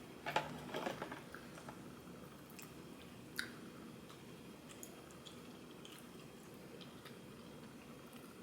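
A person chewing and tasting food up close: small wet mouth clicks and smacks, bunched in the first second, one more about three and a half seconds in, then only faint ticks.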